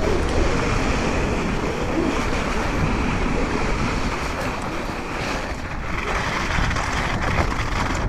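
Wind rushing over an action camera's microphone, mixed with a mountain bike's tyres rolling and rattling at speed over snow and then loose rock, a steady loud rush of noise.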